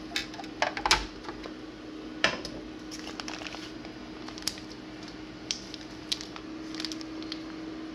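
Kitchen handling noises: scattered clicks, knocks and squishy rustles as a bagged batch of mashed potatoes is handled and put into the machine, over a steady low hum. The loudest knocks come about a second in and again a second or so later.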